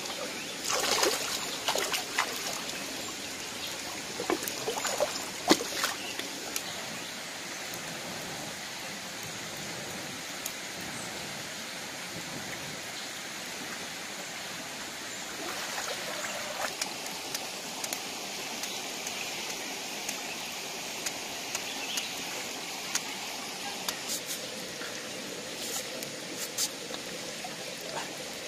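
Shallow stream flowing steadily over rocks, with short splashes and knocks from handling now and then.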